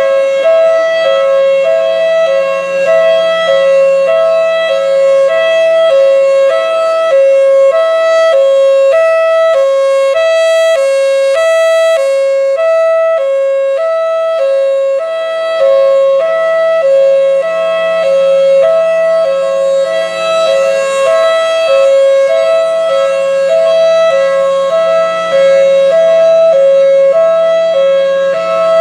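Federal Signal Thunderbolt 1003 outdoor warning siren sounding its hi-lo signal, the fire call: a loud two-tone sound switching steadily and rapidly between a higher and a lower pitch, with a steady hum beneath.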